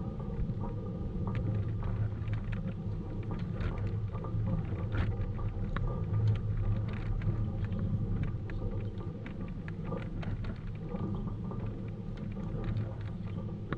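Tennis rally on a hard court: sharp, irregular pops of racket strikes and ball bounces, the loudest about six seconds in as the near player swings. Under them runs a steady low rumble of wind on the microphone.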